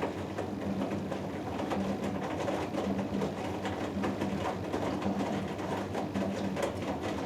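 Hoover Dynamic Next washing machine running its cotton cycle: a low motor hum that pulses about twice a second, with swishing and small clicks from the water and laundry in the drum.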